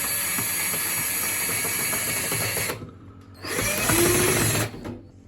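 Power drill driving the tensioning screw of a washing machine door seal's retaining band: it runs steadily for under three seconds, stops, then gives a second, shorter burst that changes pitch and stops as the screw tightens to the point where the drill will no longer turn it.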